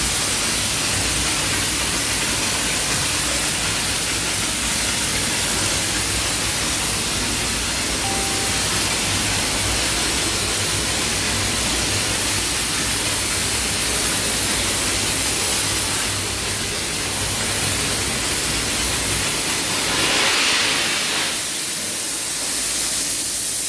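Steam car-wash wand spraying steam onto a car's bodywork: a steady loud hiss, with a low hum beneath it that drops away near the end.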